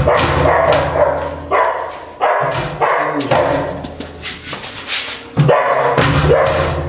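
A dog barking repeatedly, with thuds from a foot kicking a rusted, stuck sheet-metal kennel door to free it.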